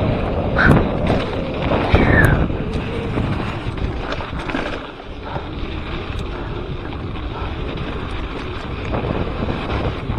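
Wind buffeting the action camera's microphone on a moving mountain bike, over the rumble of tyres rolling on a dirt trail and scattered clicks and rattles from the bike. A few short squeaks sound in the first two seconds.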